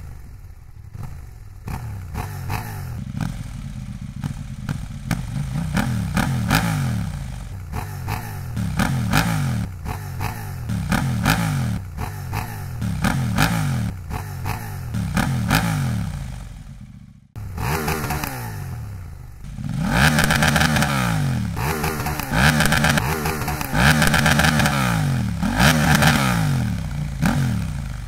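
KTM 890 Duke R's parallel-twin engine revved repeatedly at standstill in short throttle blips, each rising and falling back to idle, first through the stock exhaust. About two-thirds of the way through it cuts to the same bike with an Austin Racing V3 Mini slip-on exhaust, revving the same way and louder.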